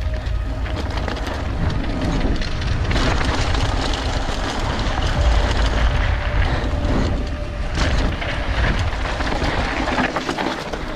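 Wind buffeting the microphone in a deep, steady rumble, over a constant rattle and clatter of small knocks from a mountain bike riding rough ground.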